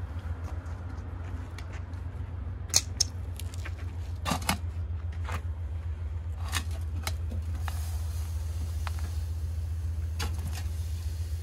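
A wooden casting flask full of foundry sand being handled: several sharp knocks and clatters as it is lifted and set down on metal pots. From about eight seconds in comes a steady hiss of the sand pouring out through the flask into the pots, over a constant low rumble.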